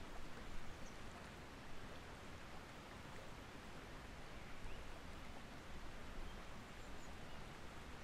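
Steady rush of a flowing stream, an even hiss of water, with a few faint, brief high chirps.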